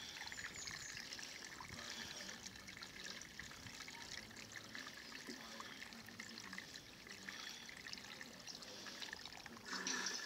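Rainwater pouring from a plastic watering can through its rose onto a wet bucket of biochar and compost mix: a steady trickle and patter of water. A brief louder burst comes near the end, then the pour stops.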